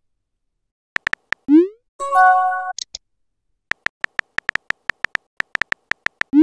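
Phone-app texting sound effects: a few keyboard-tap clicks and a rising swoop as a message is sent, then a short synthesized chime, then a fast run of keyboard-tap clicks as a message is typed, ending in another send swoop.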